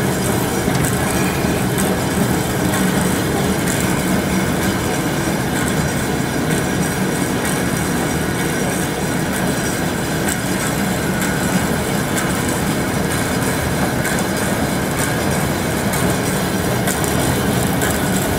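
Grob TC4L vertical band saw running steadily, its blade and band wheels turning with an even, continuous mechanical sound.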